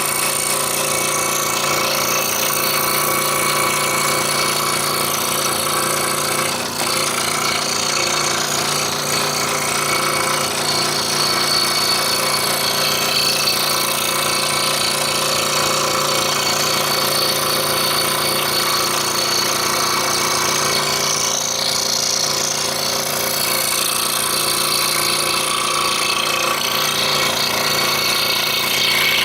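Scroll saw running, its reciprocating blade cutting through a thin wooden jigsaw-puzzle blank with a steady, rapid chatter over the motor hum. There is a brief dip about seven seconds in.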